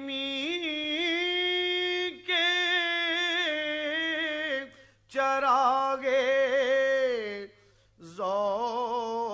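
A man singing a naat unaccompanied, holding long, wavering melismatic notes in four phrases with short breaths between them.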